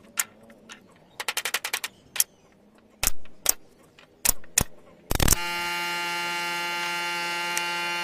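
Pneumatic nailer shooting fasteners into wooden bed slats: a quick run of clicks, then several single sharp shots. About five seconds in, a loud burst gives way to a steady buzzing tone that holds to the end.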